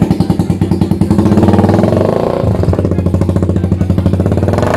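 Motorcycle engine breathing through an aftermarket iron exhaust pipe with a carbon muffler tip, running with an even pulsing beat. The throttle is opened about a second in, raising the pitch and level, then it settles into a steadier run.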